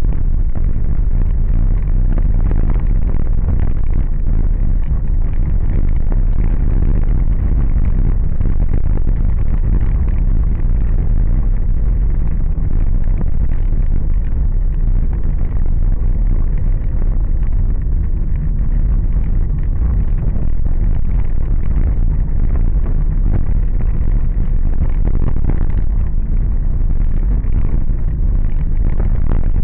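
Car driving on a rough, dusty road: a steady low rumble of engine and tyres.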